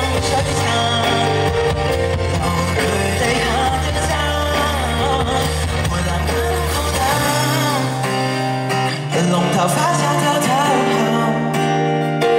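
Live Cantonese pop ballad: a male singer sings into a microphone over a band led by acoustic guitar. The low bass drops out a little over halfway through, leaving guitar and voice to carry the song.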